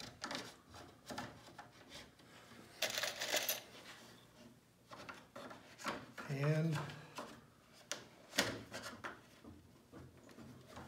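Scattered small clicks and taps of hands working a steam-bent wooden rib and clamps against a boat frame's wooden stringers, with a short scrape about three seconds in.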